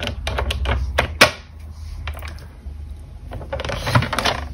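Paper trimmer used to score cardstock: several sharp clicks and taps of the blade carriage and the card against the rail, then a short scraping slide of the carriage along its rail near the end as a score line is pressed in.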